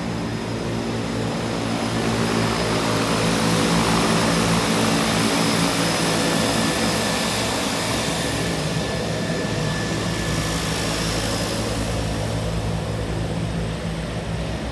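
Twin-engine propeller airplane taxiing past: a steady propeller and engine drone with a thin high whine, loudest about four seconds in.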